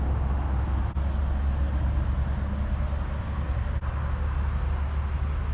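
Road noise of a car on the move, a steady low rumble with tyre hiss and a thin high whine running over it.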